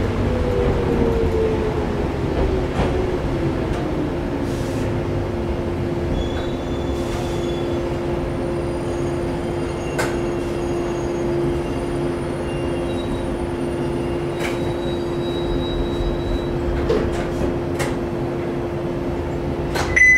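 Interior running sound of a JNR 115-series electric multiple unit (KuMoHa 115-501, MT54 traction motors) slowing into a station. The traction motor and gear whine falls in pitch over the first few seconds. After that, a steady hum and low rumble carry on as the train rolls to a stop, with a few light clicks and squeaks.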